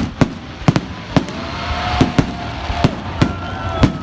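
Fireworks salute: a run of sharp bursting-shell bangs, about two a second at irregular spacing, with a faint thin whistling tone running between them.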